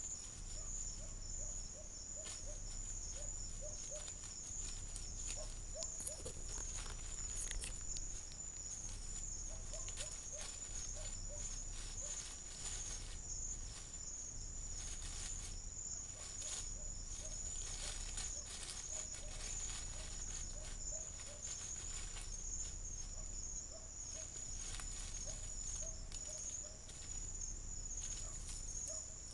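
Steady, high-pitched chorus of night insects, with a soft low note repeated in short quick series again and again, and scattered rustling in the vegetation.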